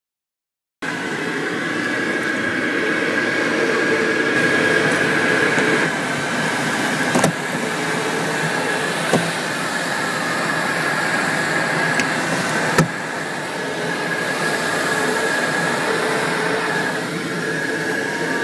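Airflow rushing over the canopy of a Glasflügel Mosquito 303 sailplane in flight, heard inside the cockpit: a steady rush with a faint whistle, beginning about a second in, with a few sharp clicks.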